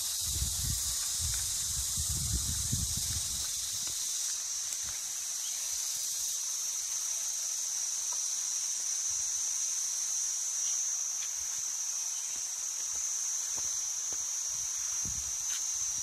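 Steady high-pitched drone of cicadas over a constant hiss of falling water, with a few low rumbles in the first four seconds.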